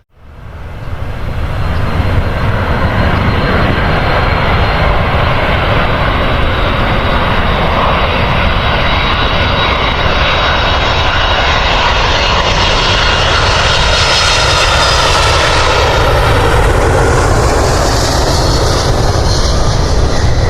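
Airliner's engines running loud and steady as the plane passes close by, the sound swelling up within about two seconds after a brief drop-out at the start and its tone shifting about two-thirds of the way through.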